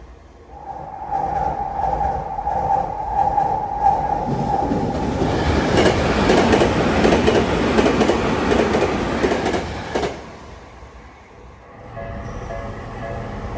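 Electric commuter train on the Tokyu Meguro Line passing a level crossing at high speed. A long steady tone holds for about four seconds, then comes the rush of the train with its wheels clattering rhythmically over the rail joints. The passing cuts off sharply about ten seconds in, and a fainter rumble builds near the end.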